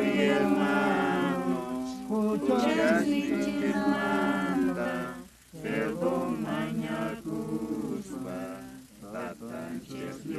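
A group of men and women singing a hymn together without instruments, in long held notes, with a brief pause for breath about five seconds in.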